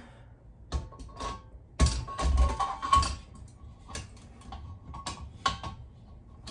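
A bare motorcycle wheel rim set down onto the centre post of a metal tire-changing stand and settled into place: a string of irregular metal knocks and clanks, with the loudest knock and a dull thud about two seconds in and a faint metallic ring.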